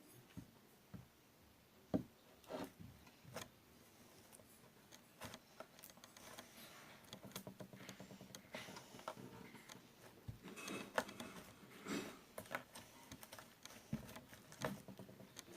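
Faint handling sounds of slime being worked by hand: scattered soft clicks, taps and squishes, some a little louder, at an uneven pace.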